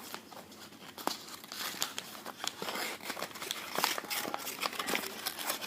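A sheet of paper being folded and creased by hand, crinkling irregularly with scattered small crackles.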